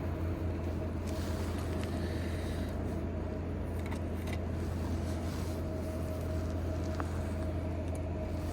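Steady low engine hum with a faint constant whine above it.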